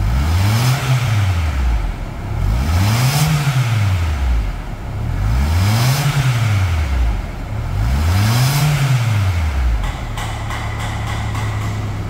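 Toyota Corolla 1.8 four-cylinder engine being revved up and down four times in smooth, even sweeps, then held at a steady raised speed for the last couple of seconds.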